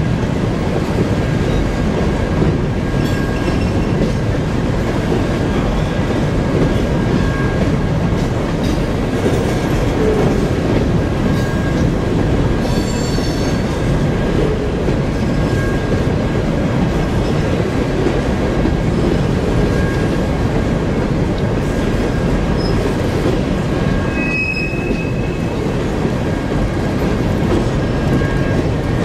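Herzog ballast hopper cars of a freight train rolling past: a steady rumble of steel wheels on rail. A faint thin wheel squeal comes and goes, with a brief higher squeal near the end.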